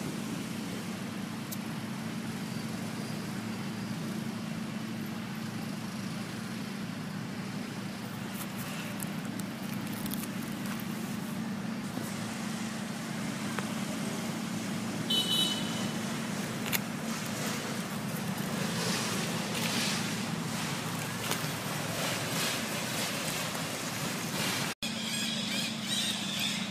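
A steady low hum, with outdoor background noise. There is a brief high-pitched chirp about fifteen seconds in.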